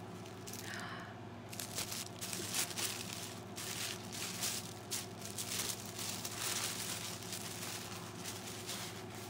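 Packaging being handled and unwrapped, an irregular crinkling and rustling that starts about a second and a half in and thins out near the end.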